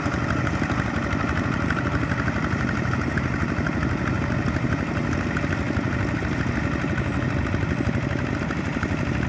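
Two-wheel walking tractor's single-cylinder diesel engine running steadily with an even, fast beat as it drags a leveling board through flooded paddy mud.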